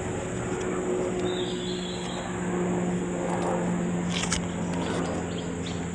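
Steady mechanical drone with a constant low hum, coming from overhead, which those present take for a helicopter.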